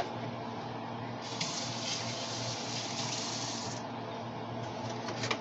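Kitchen tap running for a few seconds as hands are rinsed under it, starting about a second in and shut off before the end; a few light clicks follow near the end.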